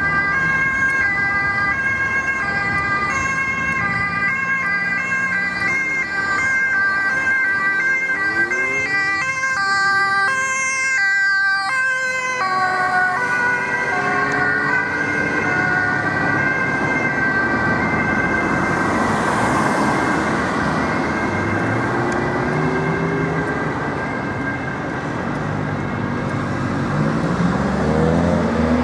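Siren of a Volkswagen Touran ambulance rapid responder on an urgent run: a loud two-tone siren alternating between high and low notes, which gives way to steadier tones. The siren weakens under road traffic noise in the second half, and a car's engine revs up near the end.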